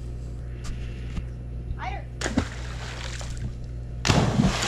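Pool water sloshing and splashing right at a camera sitting at the waterline, over a steady low hum. The water noise swells suddenly and loudly about four seconds in, and a short high wavering sound comes near the middle.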